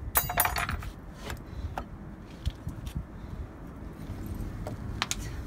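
Metal parts or tools clinking and jangling in a quick cluster just after the start, followed by a few single clicks, over a steady low rumble.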